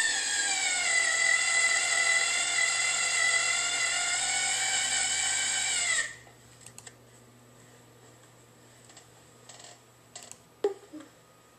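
Cordless drill motor whining steadily while driving a screw, its pitch sagging slightly under load, then stopping abruptly about six seconds in. A few faint clicks follow.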